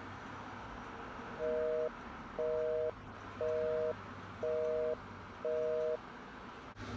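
Telephone busy signal: five beeps of two steady tones sounding together, each about half a second long and about one a second.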